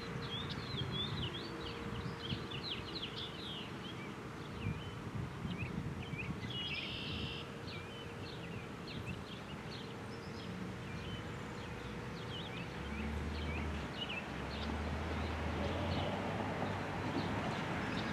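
Outdoor ambience of birds chirping over a low rumble, with the faint steady tone of a distant outdoor warning siren that fades out about ten seconds in.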